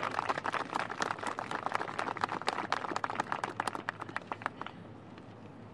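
Crowd applauding, the claps thinning out and dying away about four and a half seconds in.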